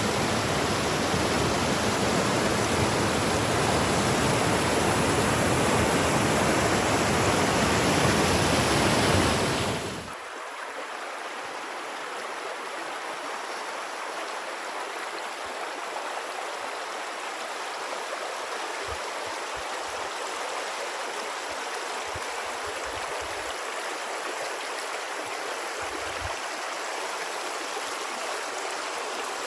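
Rushing water, steady and full for about ten seconds, then dropping suddenly to a quieter, thinner rush.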